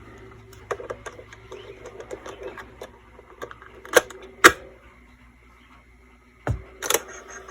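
Hands flipping the tape over in a vintage Dictaphone playback unit: small scattered clicks and rattles, two sharp clicks about four seconds in, then a dull thump and another click near the end, over a faint steady hum.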